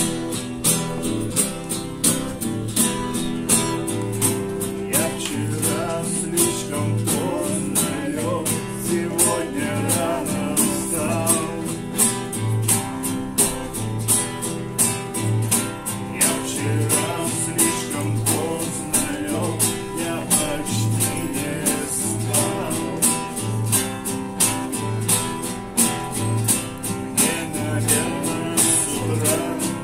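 A nylon-string classical guitar and a steel-string acoustic guitar strummed together in a steady rhythm, with men's voices singing over them.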